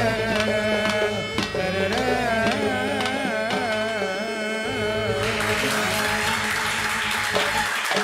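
A male voice sings an ornamented, wavering melodic line over the strokes of two hand-played frame drums. About five seconds in, the singing and drumming stop and an even hiss like applause takes over as the song ends.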